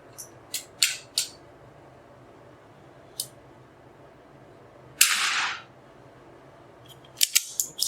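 A single .22 LR shot from an Anschutz 1903 single-shot bolt-action target rifle about five seconds in, a sharp crack with a short ring-out in the small room. Light metallic clicks from handling the rifle come before it, and a quick run of clicks near the end.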